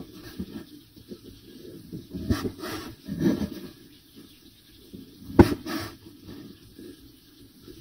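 Large cleaver knife cutting the crusts off white sandwich bread on a wooden cutting board: a few scraping, crunching cuts through the crust, then a sharp knock of the blade on the board about five and a half seconds in.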